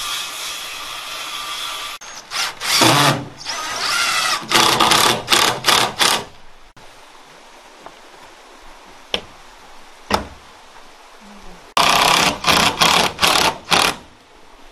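Power drill driving fasteners into siding boards: one steady run, then strings of short trigger bursts, with a single knock in the pause between them.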